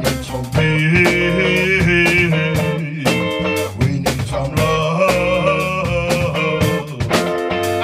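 Live blues-rock band playing, electric guitar and drums under a man singing into the microphone.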